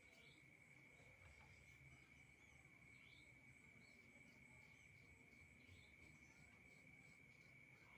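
Near silence with a faint, steady, high-pitched cricket trill.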